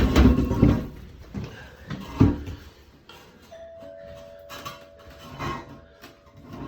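Knocks and bumps of toilet parts and tools being handled and set down, then a steady tone lasting about three seconds.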